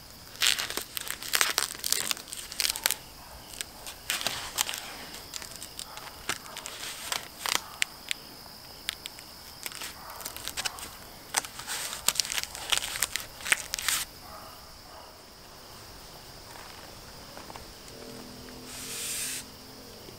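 Black duct tape being pulled off the roll and wrapped around foam pipe insulation on a metal carport pole: irregular crackling and ripping that stops about 14 seconds in. Insects keep up a steady high drone, and there is a short rustle near the end.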